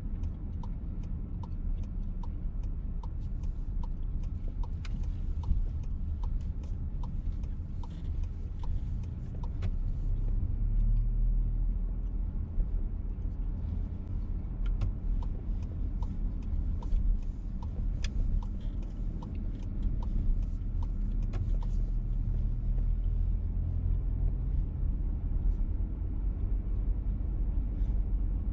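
VW T-Roc petrol car driving, heard from inside the cabin: steady low engine and road rumble. A regular light ticking, about two a second, runs for the first ten seconds or so, stops, and returns for a stretch in the middle.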